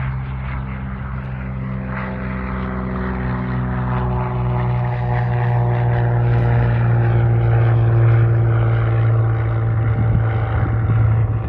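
Propeller airplane engine running with a steady low drone, growing a little louder over the middle of the stretch.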